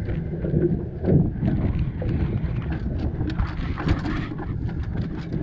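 Steady low rumble of wind on the microphone, with a string of light knocks and clicks as the landing net and gear are moved about on a fibreglass boat deck.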